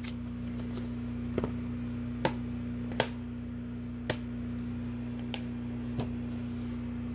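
Plastic DVD and VHS cases being handled: about six sharp clicks and taps, roughly one a second, the sharpest about three seconds in. A steady low hum runs underneath.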